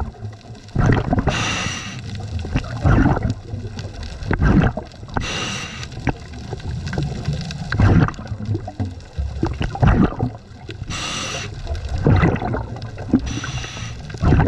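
A scuba diver breathing through a regulator underwater: short hissing inhalations, four of them, between stretches of gurgling exhaled bubbles.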